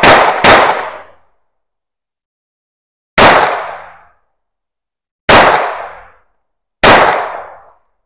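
Semi-automatic pistol firing five shots: two in quick succession at the start, then three single shots spread over the following seconds. Each shot cracks sharply and trails off in an echo lasting about a second.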